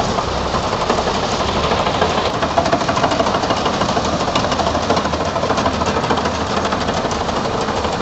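Standard TSC-513 combine harvester, powered by a John Deere 5310 tractor's diesel engine, working through a rice crop. The engine runs steadily under load, mixed with a rapid, even mechanical clatter from the turning header reel and its belt and chain drives.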